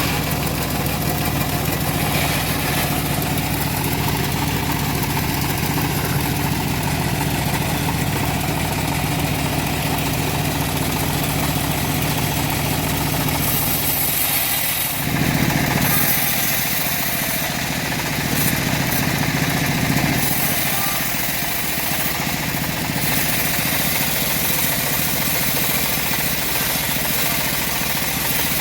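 Homemade engine-driven bandsaw running steadily while ripping semi-dry teak. About halfway through it turns louder and harsher for several seconds, with a hissing rasp on top of the engine note.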